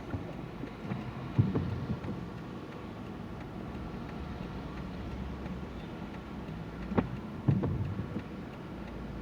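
Car driving slowly, heard from inside the cabin: a steady low hum of engine and tyres, with a few soft knocks, one about a second and a half in and two close together around seven seconds in.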